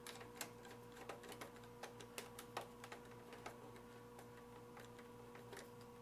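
Faint, irregular small clicks of a screwdriver turning a black screw into the back panel of an Alienware X51 case, several a second at first and thinning out toward the end, over a low steady electrical hum.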